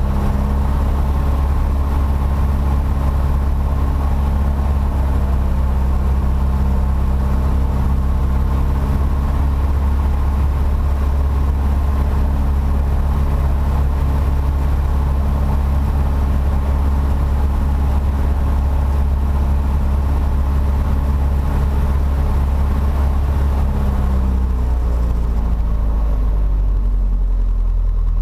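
Piper PA-28-140 Cherokee's four-cylinder Lycoming O-320 engine, heard from inside the cockpit, running steadily at a raised, even speed; near the end it is throttled back and its pitch falls to a lower idle.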